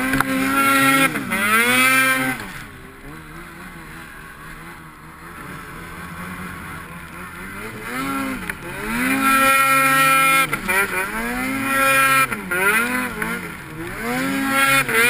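Snowmobile engine revving, its pitch rising and falling again and again with the throttle. Loud for the first two seconds, fainter through the middle, then loud revving again from about nine seconds on.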